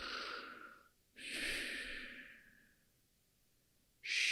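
A person making long, breathy, snore-like breaths, two drawn-out exhales that fade away, then a hushing 'shh' starting near the end.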